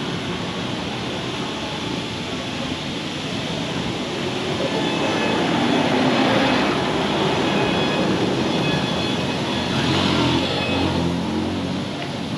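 Street traffic noise: vehicles passing on the road, swelling twice as they go by.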